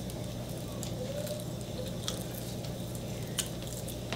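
Close-miked eating sounds: chewing and a few sharp little crunches as a dried seaweed snack is bitten and eaten, over a steady low background hum.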